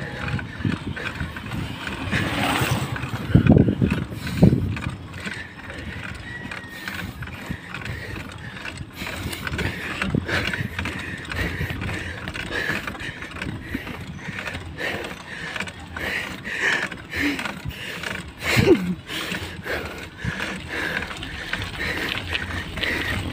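Mountain bike rattling and clicking as it is ridden uphill over rough concrete and loose gravel, with a few heavier thumps from bumps in the road.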